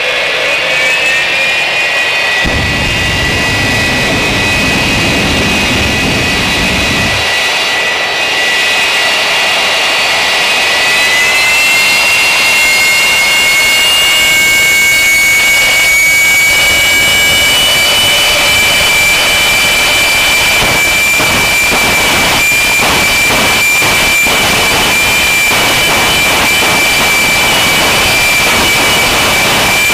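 Jet truck's jet engine running with a loud, steady high whine, its pitch stepping up slightly about eleven seconds in. A low rumble joins it for a few seconds between about two and seven seconds in.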